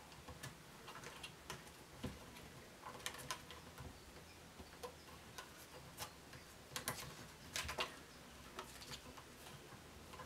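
Irregular light clicks and plastic rattles as hands work at the rear handle of a new chainsaw's plastic housing, freeing a paper tag attached there.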